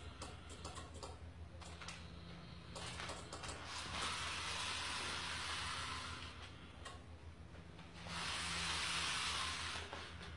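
Small motor of a homemade sun-tracking solar panel whirring as it turns the panel toward the light, in two runs of about two seconds each. A few light clicks come just before, over a steady low hum.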